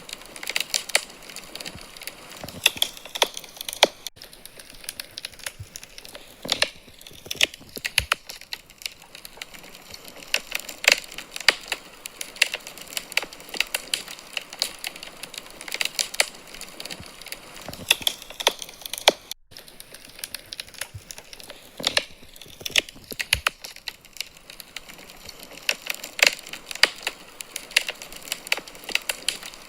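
Wood fire crackling in a fireplace: irregular sharp snaps and pops from the burning logs over a low hiss, with a split-second dropout about two-thirds of the way through.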